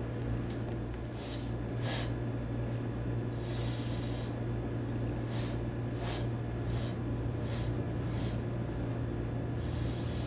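A martial arts student's sharp, hissing exhalations through the mouth and nose, pushed out with each block, with two longer breaths between them, one in the middle and one near the end.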